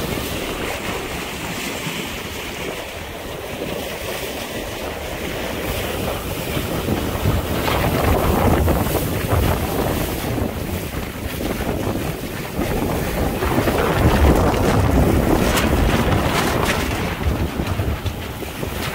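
Wind buffeting the microphone over the rush and splash of water along the hull of a Tartan 10 sailboat heeled under sail through choppy sea, rising and falling in surges as it meets the waves.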